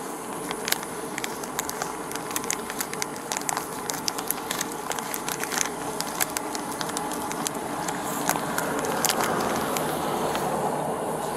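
Irregular small clicks and crackles of objects being handled, over a steady background hiss that grows a little louder about eight seconds in.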